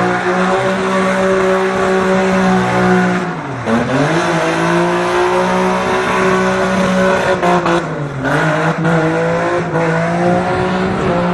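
A car engine held at high, steady revs with tyres squealing, as in show-driving or drifting. The revs dip sharply and climb back twice, about three and a half seconds in and again about eight seconds in.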